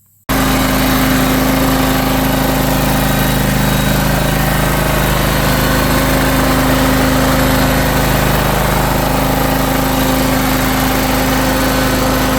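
John Deere X540 lawn tractor engine running at a steady, even idle, starting abruptly right at the start. It is running smoothly with no hunting up and down, now that the carburetor has been cleaned of trash and the weak fuel pump and fuel filter replaced.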